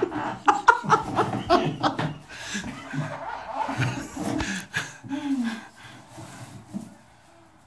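People laughing and chuckling in short, irregular bursts, over knocks and scrapes from a tree branch being jammed down into a plugged portable toilet. The laughter dies away in the last couple of seconds.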